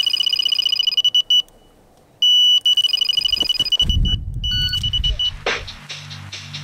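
Electronic carp bite alarm sounding a run: a high-pitched tone in fast repeated beeps as a fish pulls line off the reel. It stops briefly about 1.5 s in, resumes until about 5 s in, and a low rumble of handling comes as the rod is lifted. Background music with a beat comes in near the end.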